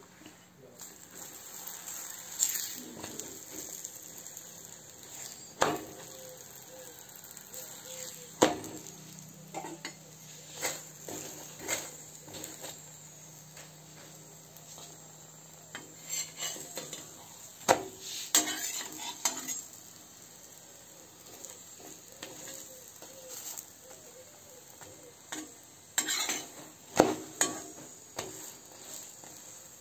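Metal spatula clinking, scraping and knocking against a cast-iron pan as a roti is turned and pressed on it. The strokes are scattered and uneven, with a few sharp knocks, over a faint steady hum in the first half.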